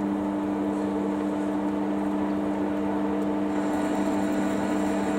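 Metal lathe running, its chuck spinning with a steady hum from the motor and gearing, during a single-point thread-cutting pass.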